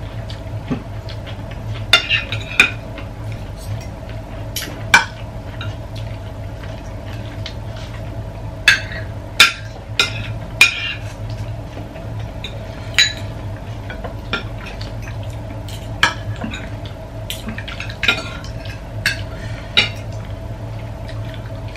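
Spoons and forks clinking and scraping against ceramic plates and bowls as several people eat, a scatter of sharp clicks over a steady low hum.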